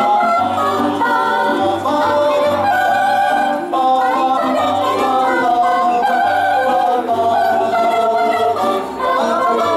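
Mixed choir of men and women singing in harmony, held notes moving together over a low bass line.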